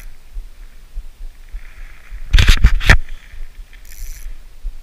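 Handling noise on a chest-mounted camera: low, uneven thumping on the microphone, and a loud cluster of knocks and rustling about two and a half seconds in.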